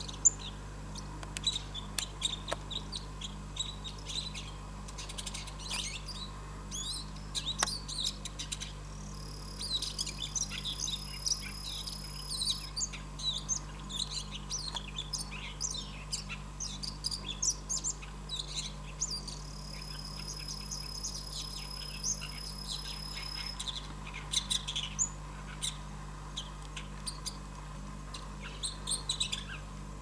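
Bull-headed shrike calling: a long run of short, high chirps and twitters in irregular bursts. A steady high whine comes in twice, for a few seconds each, about nine and about twenty seconds in.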